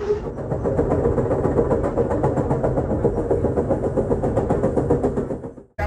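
Amtrak Southwest Chief passenger train running, heard from inside the car: a steady rumble with a fast, even pulsing. It cuts off suddenly near the end.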